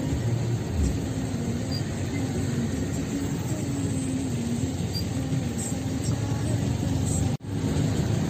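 Steady engine hum and road rumble of a moving vehicle, heard from inside it while driving. The sound cuts out for an instant about seven seconds in.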